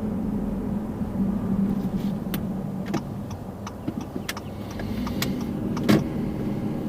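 Car driving slowly, heard from inside the cabin: a steady low engine and road hum, with scattered sharp clicks and ticks in the middle few seconds.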